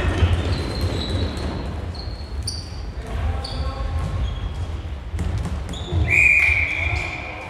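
Floorball game sounds echoing in a sports hall: players' shoes squeaking on the hall floor in short chirps, sticks and ball clicking, and running footsteps thudding. About six seconds in comes one longer, louder high squeal.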